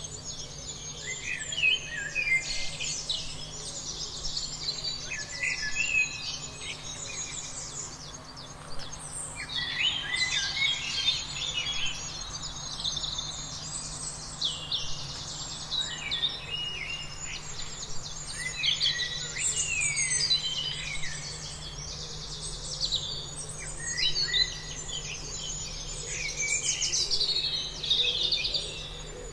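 A dense chorus of small songbirds chirping and trilling without a break, many quick high notes and short falling sweeps overlapping, over a faint steady low hum.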